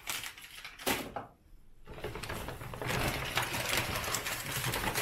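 Rustling and crinkling of a reusable shopping bag and the packaging inside it as groceries are rummaged through, with a single sharp knock about a second in. The rustling runs dense and continuous from about two seconds in.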